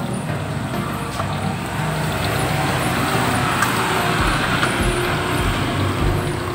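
Road traffic passing on the street, a noisy swell that builds and eases over a few seconds. A steady low beat of background music comes in about four seconds in.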